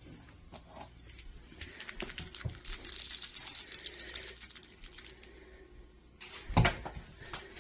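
Small toy mouse shaken in the hand, rattling with rapid clicks for a few seconds. Near the end, a single loud thump.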